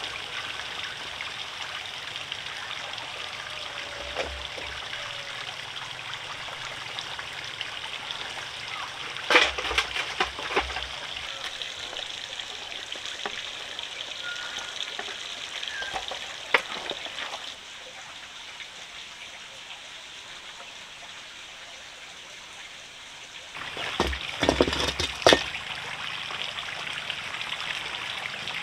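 Steady trickling, running water, with a few knocks and clatters about ten seconds in, again at about sixteen seconds, and a cluster near the end.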